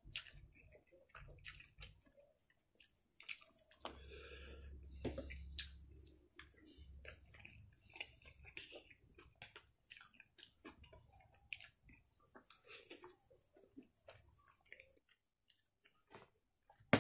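Close-up eating sounds of spicy instant noodles: wet chewing and slurping, with many small clicks, and a longer noisy slurp about four to six seconds in.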